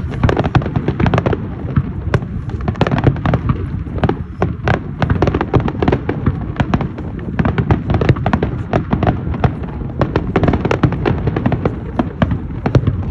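Fireworks going off in dense, rapid succession: many sharp bangs and crackles each second over a continuous low rumble.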